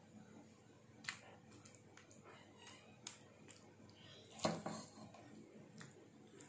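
A spoon spreading a wet, chunky chicken-and-vegetable filling over dough in a baking mould: a few faint taps and knocks, the loudest about four and a half seconds in.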